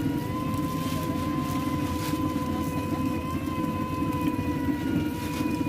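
Electric sugarcane juice press running: a steady motor hum with a high, slightly wavering whine.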